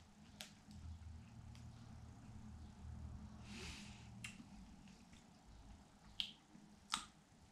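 Faint handling of a small plastic packet of dried edible insects while they are being chewed: a few soft sharp clicks, one about half a second in and two near the end, and a brief crinkle about halfway through.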